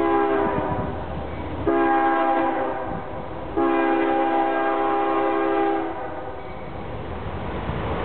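Multi-chime air horn on the leading GE Evolution-series (GEVO) diesel locomotive of an approaching CSX freight, sounding three blasts, the last about twice as long as the first two. Under the horn runs a low diesel-and-rail rumble that grows louder near the end as the train nears.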